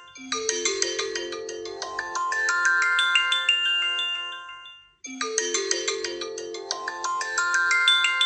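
Phone ringtone playing through a phone's speaker: a quick electronic melody of bell-like notes. The phrase fades out and starts over about five seconds in.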